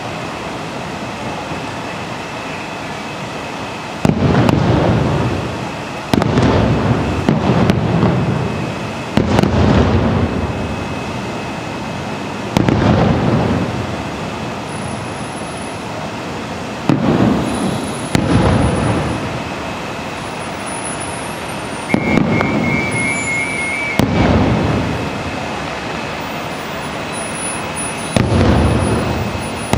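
Distant fireworks shells bursting: about ten deep booms, each rolling off in a long echo, some a second apart and some several seconds apart, over a steady background hiss.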